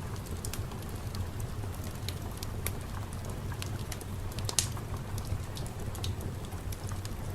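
Fire crackling: sparse, irregular sharp pops over a steady low rumble, with one louder pop about four and a half seconds in.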